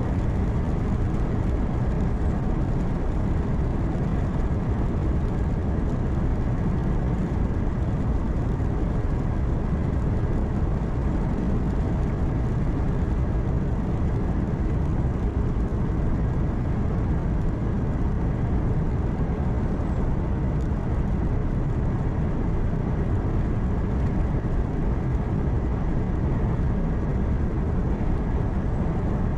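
Truck's engine and tyre noise heard from inside the cab while driving on the highway: a steady, even low drone.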